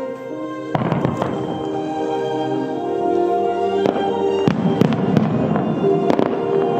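A starmine fireworks barrage begins firing about three-quarters of a second in: sharp bursts at irregular intervals over a continuous crackle. Music plays along with the show throughout.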